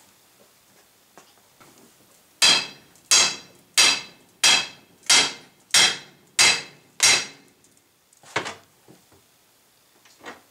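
Hammer striking a driveshaft's U-joint yoke to drive the bearing cup out: eight hard blows in a steady rhythm, about three every two seconds, each ringing out briefly, then one lighter knock.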